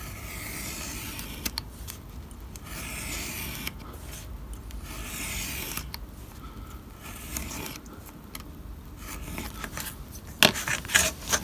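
Craft knife drawn along a steel ruler through stiff card, several scraping strokes about a second and a half each, cutting a 45-degree bevel along the edge. A few sharp knocks near the end.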